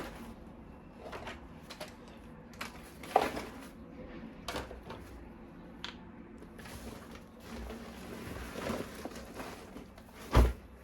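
Toy pieces and packaging being handled: scattered knocks and clicks with light rustling in between, and a louder thud near the end.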